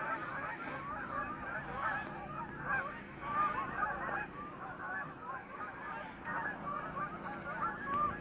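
A flock of domestic geese honking, many short calls overlapping without a break.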